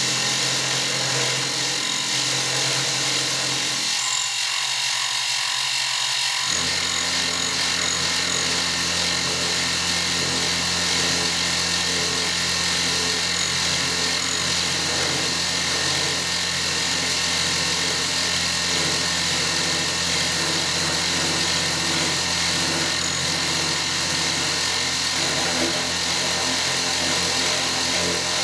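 Harbor Freight mini milling machine running steadily as its end mill plunges into and mills a slot in a 6061 aluminum bar, the motor and spindle whine mixed with the sound of the cutter chipping the metal. About six and a half seconds in, a lower steady hum joins and holds.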